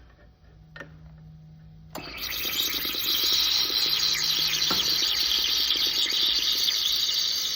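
Laser welding under water: a dense, sizzling crackle starts abruptly about two seconds in and runs on steadily and loudly as the laser fuses metal and boils the water at the weld.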